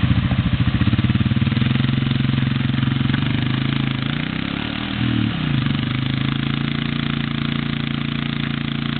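ATV engines running at idle with a fast, even firing rhythm. About four to five seconds in, the pitch briefly dips and rises as the throttle is worked, then settles back to a steady idle.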